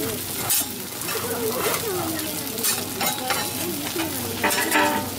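Okonomiyaki and shredded cabbage sizzling steadily on a large flat iron griddle. A metal spatula scrapes and taps on the griddle a few times, most strongly near the end.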